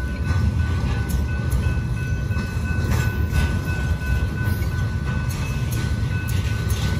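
Intermodal freight train of semi-trailers on spine cars rolling past: a steady low rumble of steel wheels on rail with scattered clicks and clanks, and a thin steady high tone running through it.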